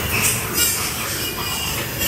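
Nursing piglets giving a few short, high squeals as they jostle at a sow's teats.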